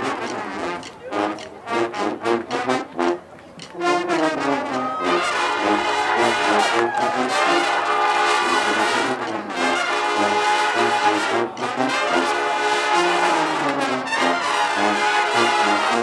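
College marching band playing: short punched brass chords with gaps between them for about the first four seconds, then the full brass section playing loud and sustained.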